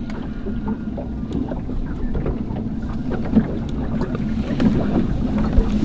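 Steady low rumble of a boat afloat, with wind on the microphone and a few faint light clicks.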